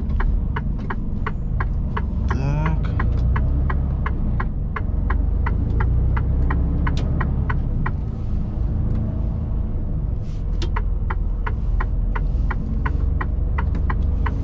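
Mercedes-Benz truck cab on the move: steady engine and tyre rumble on a snowy road, with the turn indicator ticking about three times a second. The ticking pauses for about two seconds past the middle, then starts again.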